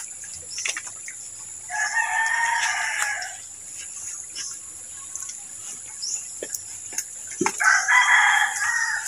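A rooster crowing twice, each crow about a second and a half long, the second about five seconds after the first.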